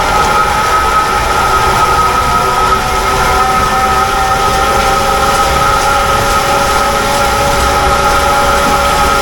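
Clog-making copy lathe running, its spinning wheel of knives carving a block of wood into a wooden shoe, a loud steady whine over a rumble. The whine drops slightly in pitch about three seconds in.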